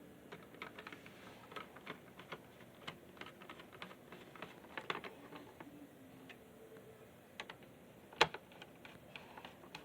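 Scattered light plastic clicks and taps of small parts being fitted and snapped into a Pontiac Grand Prix DIC button module, with one sharper click about eight seconds in.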